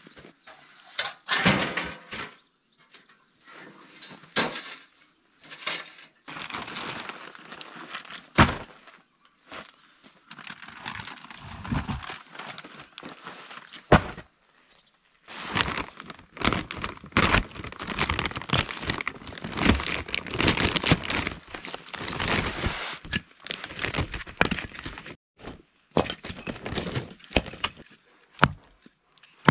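Split firewood being unpacked from plastic bags and laid down: the bags rustle and crinkle, and the wooden logs knock and clatter against each other and the ground, with a few sharp wooden thunks.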